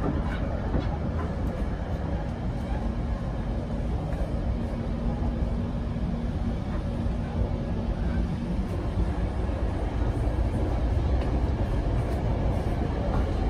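Running noise inside a Bombardier BiLevel commuter coach on the move: a steady low rumble of wheels on rails, with a faint steady hum for a few seconds in the middle.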